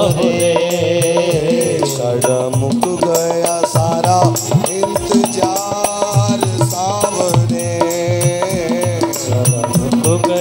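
Devotional bhajan music with a sustained, wavering melody over a steady hand-drum rhythm.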